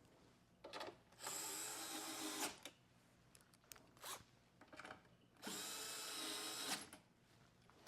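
Cordless power driver running twice, about a second each time, driving in fasteners, with a few light clicks of metal between the runs.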